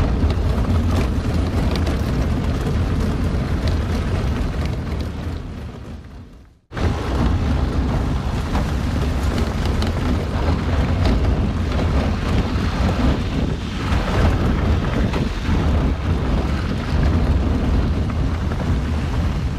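Vehicle driving over a rough gravel and stone track: a loud, steady rumble of tyres and wind on the microphone, heaviest in the low end. It fades out and breaks off briefly about seven seconds in, then comes straight back.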